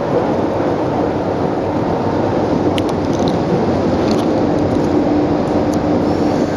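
Passenger boat's engine running with a steady loud drone, heard from on board; a steadier hum comes up about four seconds in.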